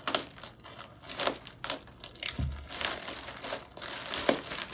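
Plastic poly mailer bag crinkling and rustling as it is slit and pulled open by hand, in irregular rustles, with one soft low thump about halfway through.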